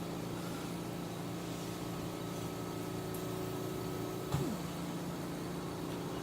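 A steady low electrical hum with a few held tones, and one short knock about four seconds in, followed by a brief falling tone.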